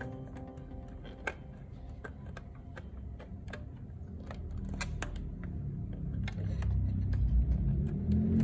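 Scattered small clicks and taps as a headlight bulb and its holder are handled and twisted into a motorcycle headlamp socket. A low hum builds over the last couple of seconds.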